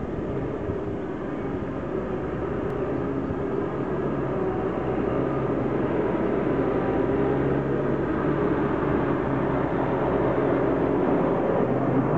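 Stadler FLIRT electric train approaching on the line, a steady mix of noise and humming tones that grows slowly louder.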